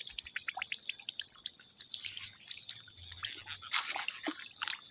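Steady high-pitched chorus of night insects such as crickets, with a quick run of faint ticks in the first second or so and a couple of short wet splashes near the end.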